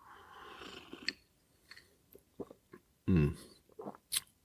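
A person sipping an iced cocktail from a glass. There is a soft drawn-in sip for about a second, then a clink of ice against the glass. Small swallowing and lip clicks follow, and a short low hum comes a little after three seconds.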